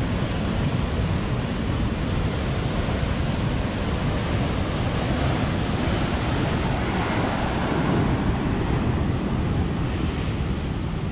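Ocean surf breaking and churning into foam around a pier, a steady rushing wash that swells a little about seven seconds in, with wind buffeting the microphone.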